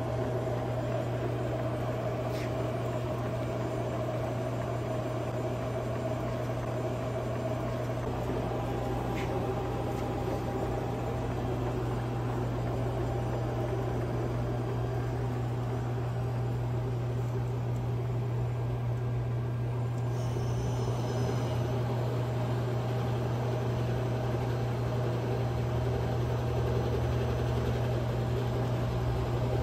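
Hwacheon Mega 95 CNC gap-bed lathe running with its spindle and chuck turning: a steady machine hum with a strong low drone and fainter higher tones.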